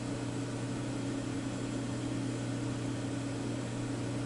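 A steady low hum over an even hiss, with no changes or separate events.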